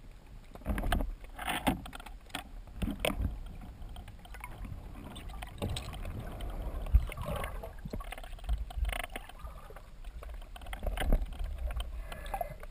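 Muffled underwater sound picked up through a waterproof camera housing mounted on a speargun: a low rumble of water moving past, with irregular knocks and swishes as the spearfisher swims and kicks with fins.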